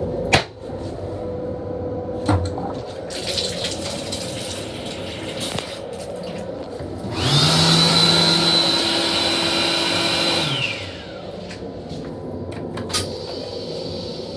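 Metro-North M7 railcar toilet flushing. A sharp click as the flush is triggered is followed by water rinsing the stainless-steel bowl. Then comes a loud flush cycle about three seconds long, with a motor whine that rises, holds steady and winds down, over the steady rumble of the moving train.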